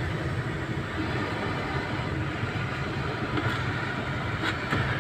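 Steady running of the idling Honda Civic and its AC blower, heard inside the cabin, with a couple of faint clicks near the end as the cabin-filter housing behind the glovebox is handled. The blower is passing less air than it should, which the technician puts down to a blocked air path past a clean filter.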